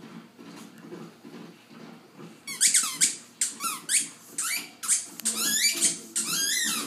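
Squeaky dog toy squeaking in a quick, irregular string of high squeals as a dog chews it, starting about two and a half seconds in; each squeak falls in pitch.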